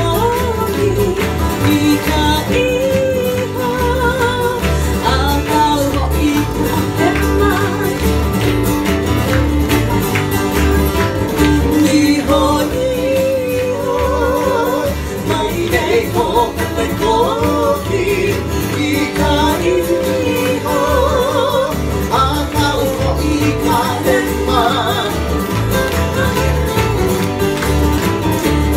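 Live Hawaiian song played for hula: two acoustic guitars strumming steadily under a voice singing through a microphone.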